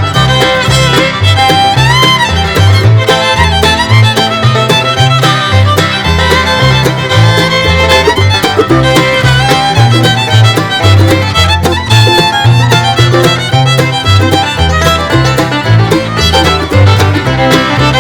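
Bluegrass-style music with a fiddle playing over a walking bass line.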